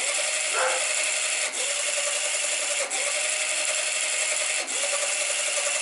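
Electric drive motor running under speed-controller power, turning a roller chain and sprocket: a steady whine with chain rubbing noise, which dips briefly about every one and a half seconds. The chain is running with some slack in it.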